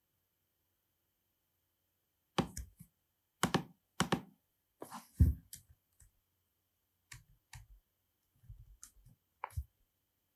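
Computer mouse and keyboard clicks: about a dozen short, irregular clicks with silence between them, some with a dull knock on the desk.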